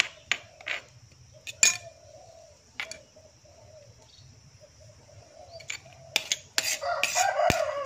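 Stone pestle knocking and scraping in a stone mortar while ground chili sambal is mixed together, with scattered sharp clinks and a denser stretch of scraping near the end.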